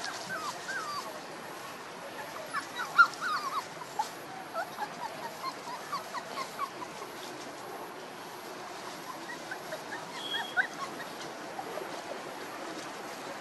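Month-old puppies yipping and squeaking in short high calls while they play, a busy run of them in the first seven seconds, the sharpest about three seconds in, and a few more about ten seconds in, over a steady outdoor hiss.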